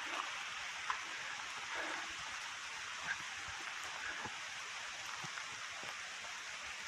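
Steady rain, an even hiss with a few single drops ticking here and there.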